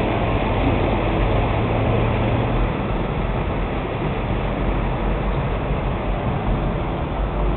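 Mercedes-Benz car driving along, a steady engine and road noise with a low rumble underneath.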